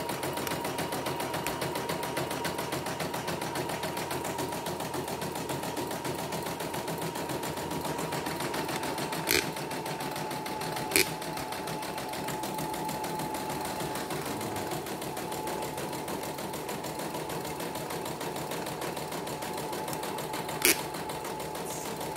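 CNY computerized embroidery machine stitching steadily on a test run after servicing: a fast even rattle of needle strokes over a steady motor whine. Three sharp clicks cut through, about nine seconds in, eleven seconds in and near the end.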